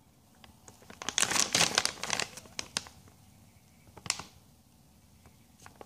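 Thin clear plastic packaging bag crinkling as it is handled and turned over in the hand. A run of crinkles lasts about two seconds, and one short crinkle follows a little later.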